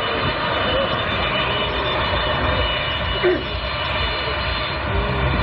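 Jet airliner engines running steadily: a loud, even rumble with a constant high-pitched whine.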